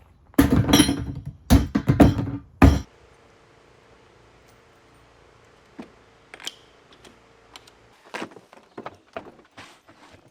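A rapid run of thuds and rattling handling noises in the first three seconds, then quiet with a few light clicks and rustles.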